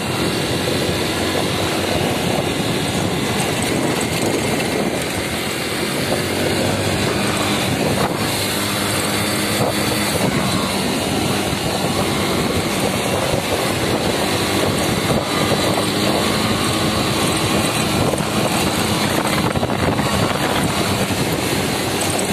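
Yamaha motorcycle engine running steadily at a light cruise, about 40 km/h, heard from the rider's seat, with road and wind noise mixed in.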